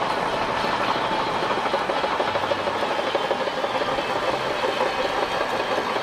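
Shantui crawler bulldozer's diesel engine running, with the continuous clatter of its steel tracks as it pushes earth with its blade.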